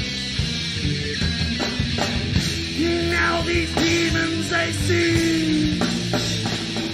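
Live heavy metal band playing, with electric guitars, bass and drums. A held high note slides over the top from about three seconds in.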